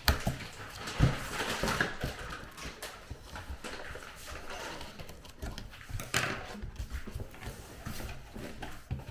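Rice cooker box and its packing being handled while unboxing: two sharp knocks within the first second, then rustling and scraping.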